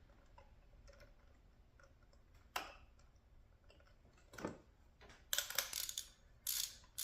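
A hand ratchet clicking in short runs as a spark plug is turned into its tube, after a couple of single light clicks.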